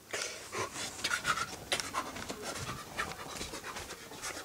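Handheld camera handling noise: irregular rustling and light knocks, with soft footsteps on carpet as it is carried along.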